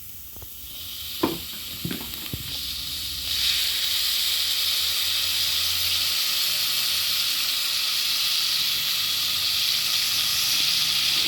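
Chopped onions sizzling in hot cooking oil in a pot: a few knocks of the utensil at first, then a steady, loud frying sizzle that swells about three seconds in.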